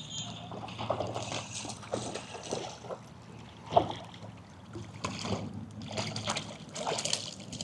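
Hooked rainbow trout splashing and water sloshing as it is played and brought in on light tackle, with scattered small clicks and knocks, the sharpest about four seconds in.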